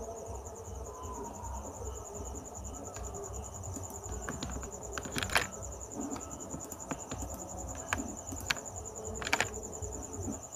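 A steady, high, pulsing insect trill throughout, with scattered sharp clicks of a computer mouse and keyboard; the loudest clicks come about halfway through and near the end.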